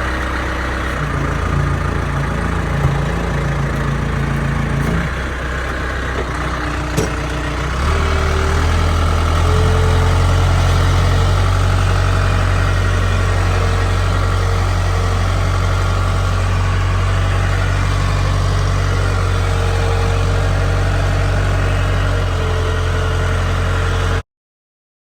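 Forklift engine running steadily, stepping up in speed and loudness about eight seconds in and holding there, with a couple of short knocks early on; the sound cuts off suddenly near the end.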